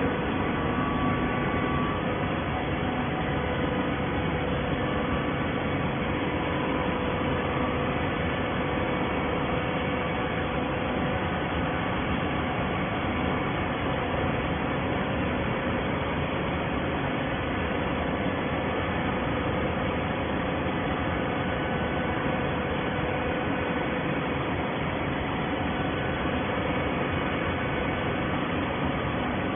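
Waste paper baler running: a steady machine drone with a faint hum, unchanging throughout.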